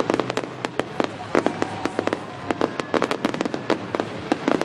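Fireworks going off in a rapid, irregular barrage: many sharp bangs and cracks a second, some in quick clusters.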